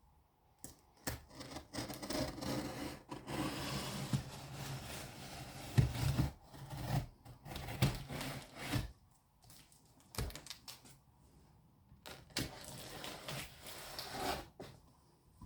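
Cardboard packaging being handled and opened: irregular scraping, rubbing and rustling with sharp knocks. It pauses for a couple of seconds after about nine seconds, then starts again.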